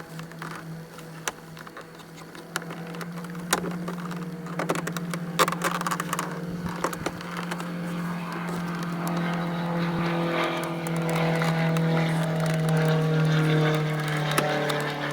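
Sharp plastic clicks and knocks as a car's interior door handle is pried out of the door panel, over a steady low hum. From about the middle a passing engine grows louder, its pitch sliding slowly, and eases off near the end.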